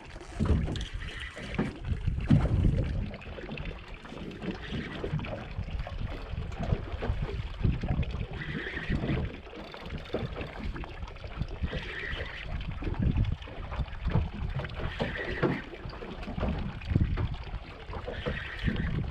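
Wind buffeting the microphone over the low slap and wash of water against the hull of a small fishing boat, uneven and gusty throughout.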